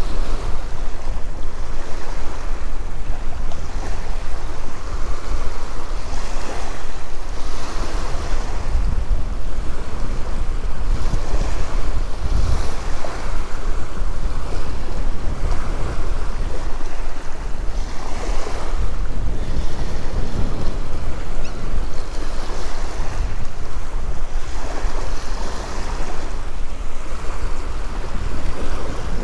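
Small surf washing up on a sandy beach, surging every few seconds, with strong wind rumbling on the microphone.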